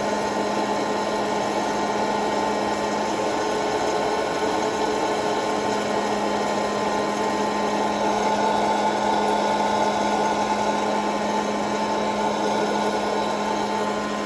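Hello Kitty hot-air popcorn maker's fan motor running with a steady, even hum, the kernels in its chamber not yet popping.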